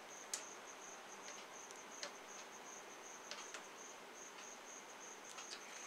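A cricket chirping in a steady, pulsing high trill, with a few faint clicks scattered through it.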